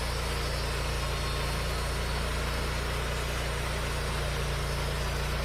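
Wood-Mizer LT40 sawmill's engine running steadily at an even, unchanging pitch.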